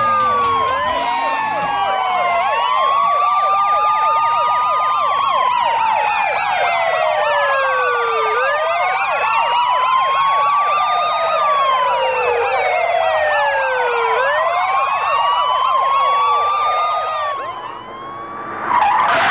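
Recorded emergency-vehicle sirens, several overlapping wailing tones rising and falling slowly over a few seconds each, played as a sound effect in a prison-themed burlesque routine. The sirens fade out near the end, followed by a brief noisy burst.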